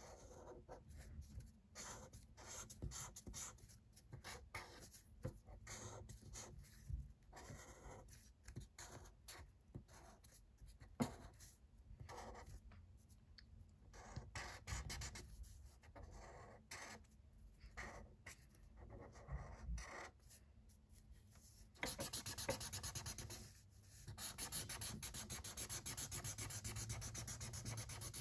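Faint scratching of a felt-tip marker scribbling on paper, colouring in with quick, uneven back-and-forth strokes that turn into steadier continuous scribbling about three-quarters of the way through.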